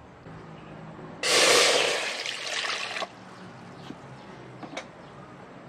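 Water pouring and splashing in an aluminium cooking pot for about two seconds, loudest as it starts and cutting off abruptly, followed by a couple of faint light knocks.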